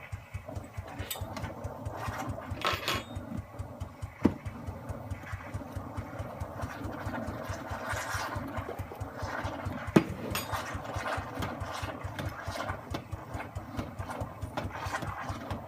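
Saeco Incanto Classic espresso machine steaming milk through its steam wand: a steady, fast pump rattle with hissing as the milk is frothed and heated. Two sharp clicks, about four and ten seconds in.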